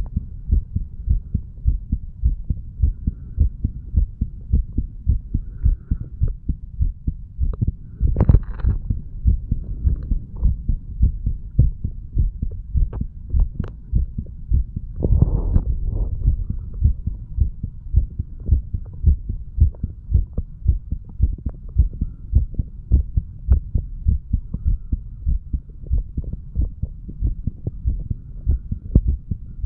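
An adult man's heartbeat recorded at the chest: a steady run of lub-dub heart sounds, which he takes for healthy valves opening and closing. About eight and again about fifteen seconds in, a brief rustling noise rises over the beats.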